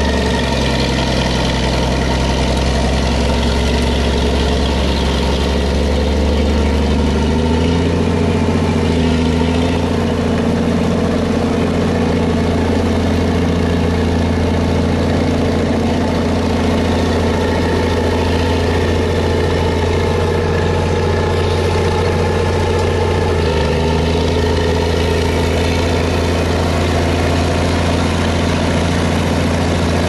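Komatsu D60-E crawler bulldozer's diesel engine running steadily as the machine pushes dirt with its blade, the engine note shifting about eight seconds in and again about twenty-three seconds in.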